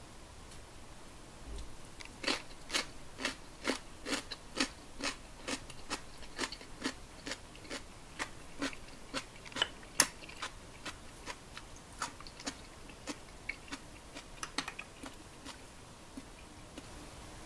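Someone biting and chewing crisp pickled daikon radish slices: a run of crunches about two a second, starting about two seconds in and thinning out near the end.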